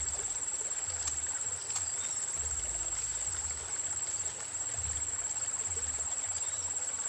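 Insects trilling in one steady, very high-pitched, unbroken drone, with an intermittent low rumble underneath.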